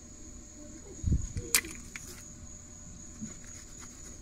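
Insects trilling steadily on one high note, with a dull knock and a sharp click about a second in and a few fainter taps after, from handling the screwdriver and rag at the outboard's lower unit.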